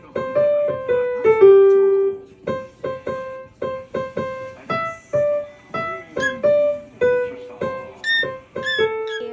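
Yamaha piano played one note at a time, a simple melody at about two notes a second, with one lower note held longer about a second and a half in.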